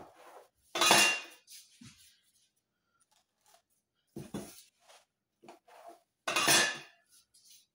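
A metal knife clinking and scraping against the metal baking pan and foil-covered counter while slicing rolled cinnamon-roll dough. Two louder scrapes of about half a second each, one about a second in and one near the end, with quieter taps and rustles between.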